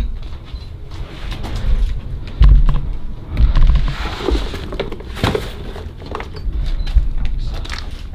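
Irregular thumps, scuffs and rustling as someone moves on a debris-covered wooden staircase, with the handheld camera being jostled. The heaviest knocks come about two and a half and three and a half seconds in.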